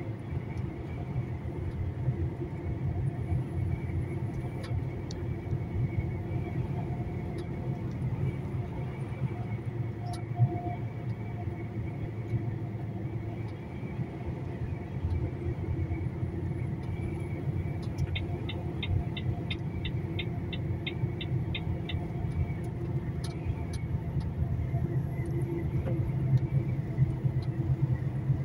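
A heavy lorry on the road: a steady low rumble of engine and road noise with a constant hum. About two-thirds of the way through, a short run of quick, even ticks lasts about four seconds.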